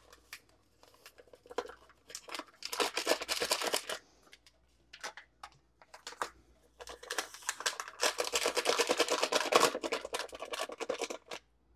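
Paper pouches of instant vanilla pudding mix crinkling as they are torn open and shaken empty into a stainless steel mixing bowl, in two spells of rapid rustling, the second longer, with small taps and clicks between.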